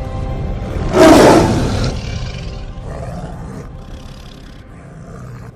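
A big cat's roar from a film's sound design, loud about a second in, followed by weaker snarls that fade away, over a dying orchestral score.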